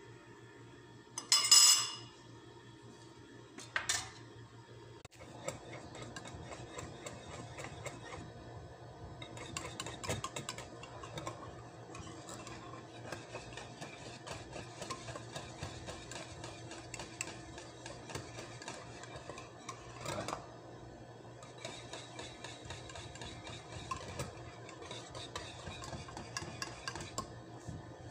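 A wire balloon whisk beats condensed milk and all-purpose cream in a ceramic bowl, its wires rattling and scraping against the bowl without a break. Two sharp clinks of metal on ceramic come about a second and a half in and again near four seconds.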